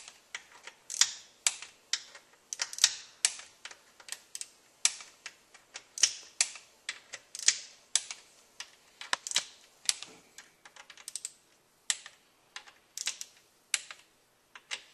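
Hand ratchet wrench clicking in quick, irregular runs as the Torx valve-body bolts of a 722.6 automatic transmission are run down and snugged.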